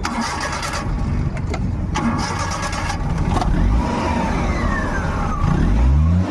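Maruti Omni's three-cylinder petrol engine starting and running, with a falling squeal that the title puts down to belt noise at start-up. The engine revs up near the end.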